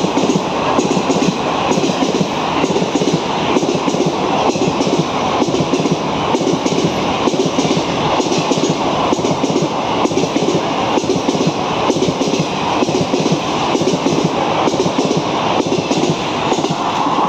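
Passenger coaches of an express train passing through a station at high speed: a loud, steady rushing rumble with a regular clickety-clack of wheels over rail joints.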